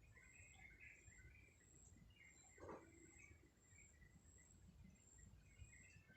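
Faint, scattered bird chirps over low background noise, with a thin high trill that comes and goes and one louder, lower call about two and a half seconds in.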